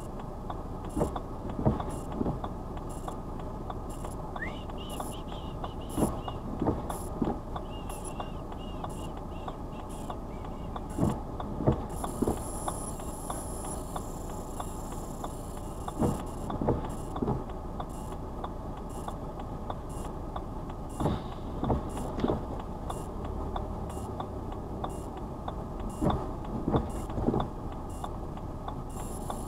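Steady low rumble of a car idling, heard from inside the cabin, with the indicator ticking regularly and the windscreen wipers sweeping on an intermittent setting about every five seconds, each sweep a short group of soft thumps.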